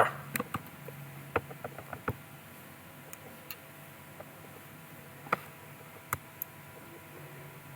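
Scattered computer mouse clicks, a dozen or so sharp ticks at irregular intervals, over faint room hum.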